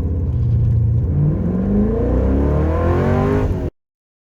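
Car engine accelerating hard, its pitch climbing steadily from about a second in, then cutting off abruptly near the end.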